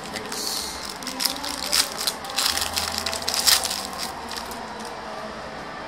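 A trading-card pack being torn open by hand, its crinkly wrapper crackling and rustling in quick irregular bursts, loudest in the middle, then dying down.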